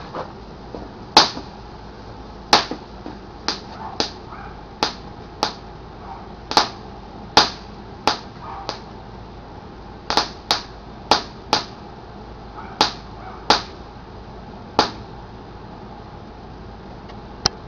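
Blue flashing fountain firework burning, giving sharp pops at irregular intervals, about one a second; they stop about fifteen seconds in, with one last pop near the end as the fountain dies out.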